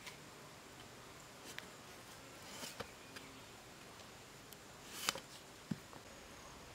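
A few separate sharp chops of a small hatchet cutting into the basket's upright wooden stakes, the loudest two a little after five seconds in.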